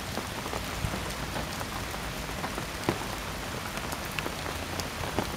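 Steady rain falling, with individual drops ticking sharply close by.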